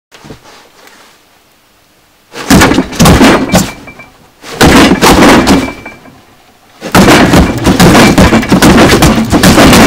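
Kitchen scissors gripped as a push dagger stabbing and punching into a cardboard box, loud knocks and thuds in quick flurries. Two short flurries come first, then an unbroken run of blows from about seven seconds in.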